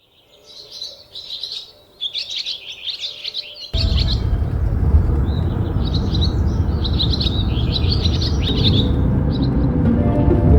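Birds chirping in quick, busy twittering phrases. About a third of the way in, a loud steady rushing noise, strongest in the low range, starts abruptly and runs on under the birdsong.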